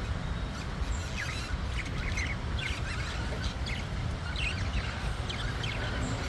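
Budgerigars chirping in short, scattered calls that start about a second in, over a steady low background rumble.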